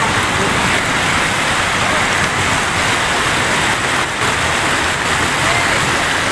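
Steady rush of shallow river water flowing fast over a rocky bed, loud and unbroken.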